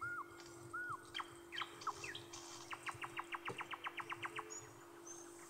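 A small bird chirping: a few short arched and falling whistled notes, then a fast trill of quick even notes about three seconds in, and brief high peeps near the end, over a steady low hum.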